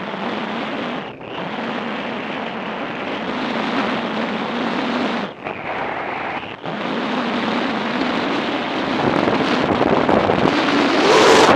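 Wind rushing over the microphone of a motorcycle-mounted camera while riding at speed, over the bike's engine and road noise. The sound dips sharply about a second in and twice around the middle, then swells loudest near the end.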